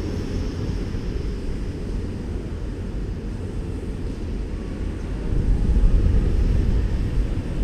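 Wind buffeting a GoPro Hero4's microphone: a low, uneven rumble that grows louder about five and a half seconds in.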